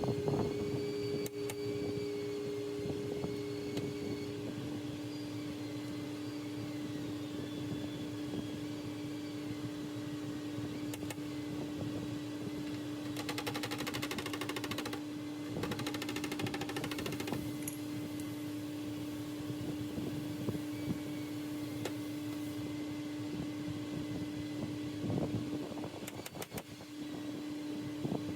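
Body shop background noise: a steady machine hum with scattered knocks, and two stretches of rapid clicking around the middle.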